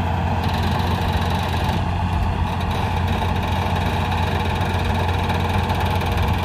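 Massey Ferguson 240 tractor's three-cylinder diesel engine running steadily while it powers the hydraulic tipping of a loaded soil trailer.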